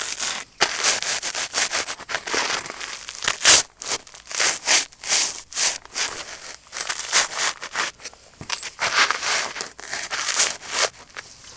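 Hard pretzels crunching and crackling under dress boots stomping and grinding on them: a rapid, irregular string of crunches, the loudest about three and a half seconds in.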